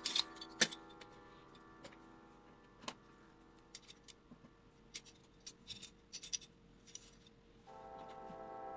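Scattered light clicks and taps, irregular and faint, with a louder pair of clicks right at the start. Background music fades away at the start and comes back in near the end.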